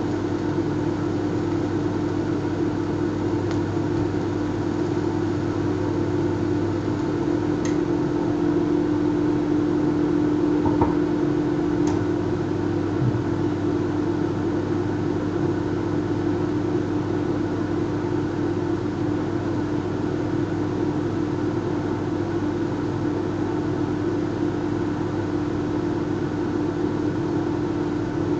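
Microwave-oven transformer humming steadily under load, a low electrical buzz, with a few faint clicks in the middle.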